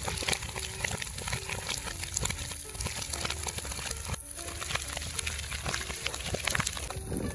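Burning brush and cut crop stalks crackling and popping: a dense run of sharp irregular snaps over a steady rushing hiss.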